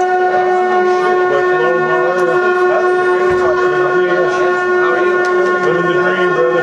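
Shofars (ram's horns) sounding one long, steady blast, with voices rising and falling underneath it.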